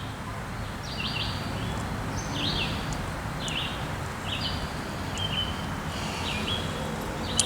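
A bird calling over and over, short high sweeping notes about once a second, over a steady outdoor background hiss; a sharp click near the end.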